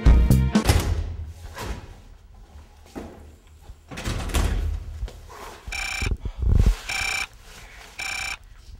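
A phone ringing: three short electronic rings about a second apart.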